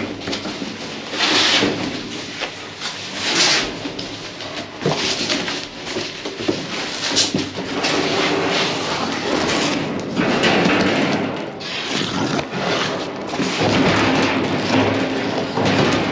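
Cardboard boxes scraping and rustling as they are dragged and lifted inside a steel dumpster, with irregular thumps and knocks.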